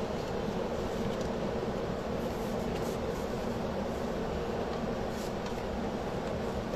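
Steady hum of a fan running, with a few faint light taps as pieces are handled on the craft board.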